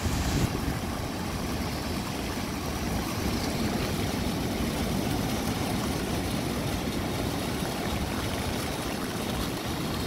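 Rough storm surf breaking over a rocky shore: a steady, churning rumble of waves with wind rumbling on the microphone.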